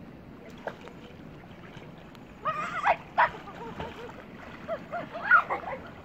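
Short high-pitched calls and exclamations from people in the water, starting about halfway through, loudest around the middle and again near the end, over a steady background hiss.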